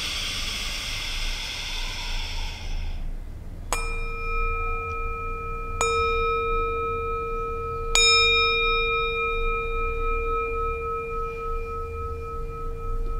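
A long breath out, then a small handheld metal singing bowl struck with a mallet three times, about two seconds apart. Its ringing tones overlap and hang on to the end with a slow waver.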